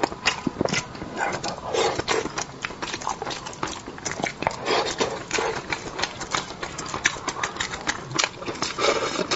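Close-miked eating sounds: a rapid, continuous run of wet lip smacks, chewing and slurping as spicy braised fish is eaten.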